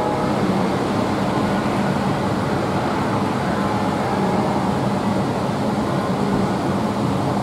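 Five church bells cast in 1903 by Giorgio Pruneri, tuned to an ascending E-flat major scale, swinging in a full peal. Their strokes overlap into a steady, continuous wash of ringing.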